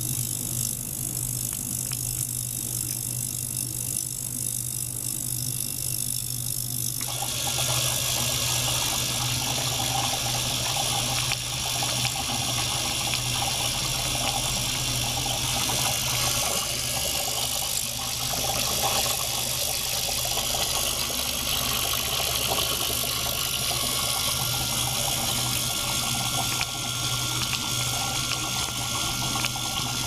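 Water churning in a small ultrasonic cleaner tank as a small pump circulates water and air through tubes into it, stirring up microbubbles. A steady low hum runs under it, and the churning water noise starts suddenly about seven seconds in and then holds steady.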